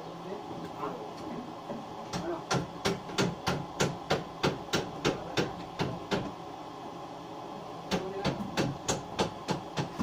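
Hammer driving nails into wooden boards: quick, even blows about three a second for some four seconds, a pause, then a shorter run of blows near the end.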